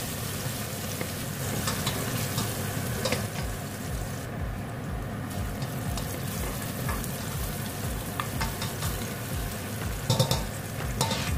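Chopped garlic frying in oil in a stainless steel pot with a steady sizzle, while a spatula stirs it and now and then scrapes or taps the pot. A brief cluster of louder clicks comes about ten seconds in.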